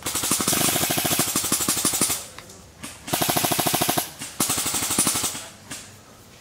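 Airsoft electric rifles firing full-auto: rapid, even rattling bursts with a steady motor whine. A burst of about two seconds is followed by two shorter bursts of about a second each and a brief one near the end.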